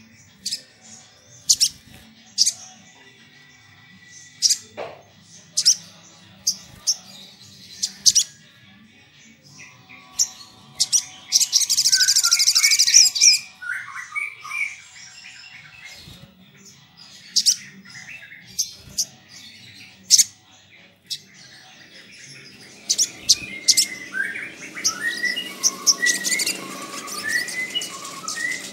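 Male olive-backed sunbird calling: sharp, high chip notes about once a second, a fast high trill for a couple of seconds near the middle, and a quicker run of twittering notes near the end.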